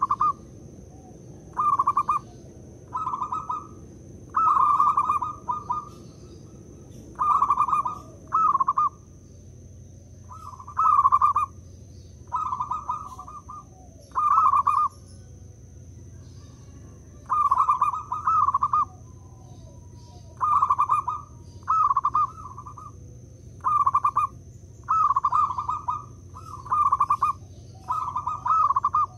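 Zebra dove (perkutut) cooing over and over: about twenty short, quick coo phrases, each under a second long, with pauses of a second or so between them.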